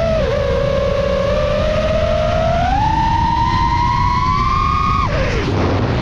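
FPV quadcopter's brushless motors whining, the pitch dipping and then climbing steadily, before breaking into a noisy rush about five seconds in. Heavy wind rumble on the microphone underneath.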